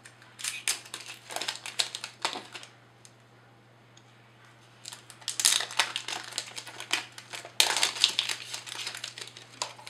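Crinkling and rustling of packaging being handled and unwrapped from a smart plug, with light clicks. It comes in spells with a pause about three seconds in, and is loudest and most continuous near the end.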